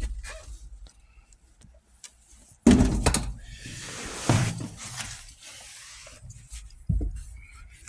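Hands working the shifter assembly in the console: a sudden clunk about two and a half seconds in, then scraping and rattling of plastic and metal parts with further knocks, as the shifter cable end is worked off the shifter.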